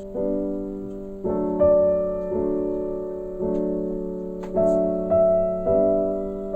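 Piano music: slow sustained chords struck and left to ring, a new chord every second or so.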